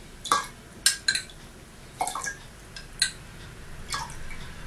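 A metal tablespoon clinks against a cup and a glass jar, about six light, sharp clinks spread irregularly over a few seconds, as spoonfuls of water are scooped and poured into the jar.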